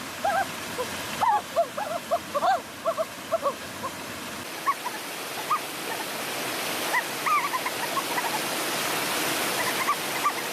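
Steady rush of falling water, with many short chirping calls from small animals or birds over it, thick in the first few seconds and scattered after that.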